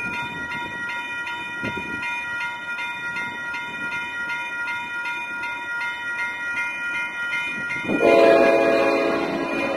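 Railroad crossing bell ringing steadily until it cuts off about eight seconds in. At that moment a locomotive air horn starts up, loud and chorded.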